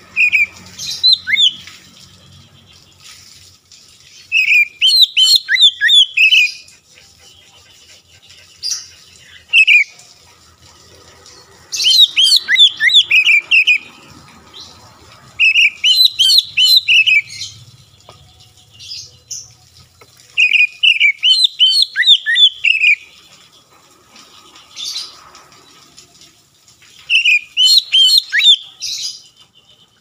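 Oriental magpie-robin in full song: about seven loud bursts of rapid, sweeping whistled notes, each lasting one to two seconds, with pauses of a few seconds between them.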